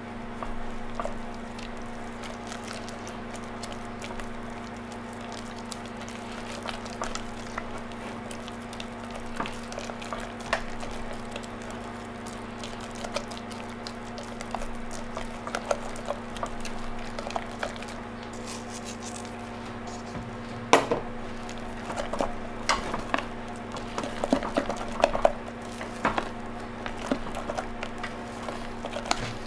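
Silicone spatula stirring and mashing potato into cream in a stainless steel saucepan: soft wet squelching with light taps and scrapes against the pan, the taps growing louder and more frequent in the second half. A steady low hum runs underneath.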